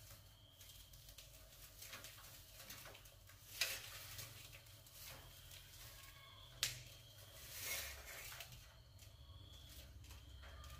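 Rats moving about on and around a wire-mesh cage trap: faint scratching and rustling, two sharp clicks of the wire a few seconds apart, over a low steady hum.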